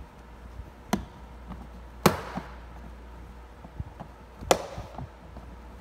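Plastic clips of a Honda Civic's door lock control panel snapping loose three times as the panel is pried up with a flathead screwdriver; the second snap, about two seconds in, is the loudest.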